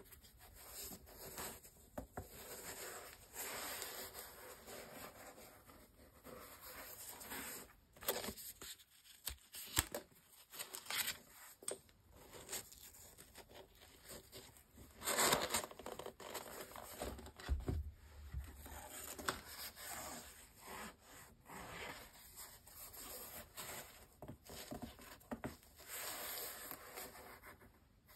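Cotton-gloved hands handling a basketball sneaker: fabric rubbing and scraping over the shoe's rubber, mesh and laces in irregular rustles. There are sharper scratches along the way, the loudest about halfway through.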